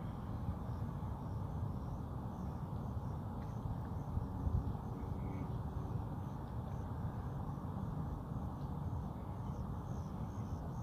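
Outdoor ambience: a steady low rumbling noise, with faint high chirps now and then.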